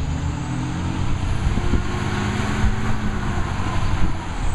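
Garbage truck's diesel engine running as the truck drives along the street, its engine note climbing slightly, with a thin high whine that rises about a second in, holds, and falls away near the end.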